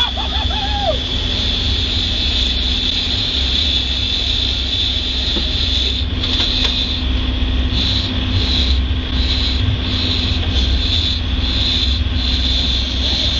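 Motorboat engine running steadily under way: a deep, even drone with a steady high whine over it, mixed with the rushing wash of the boat's wake.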